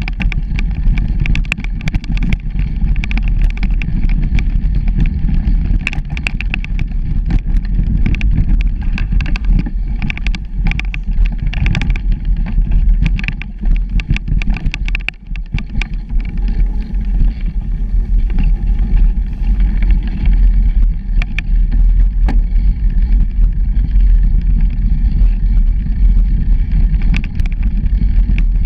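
Bicycle riding a bumpy dirt forest trail: a loud rumble of wind on the microphone and tyres on the ground, with frequent short clicks and rattles over bumps. The noise eases for a moment about halfway through.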